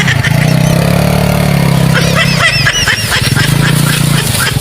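A small engine runs steadily with an even low hum. Near the middle a short run of high chirping notes sounds over it.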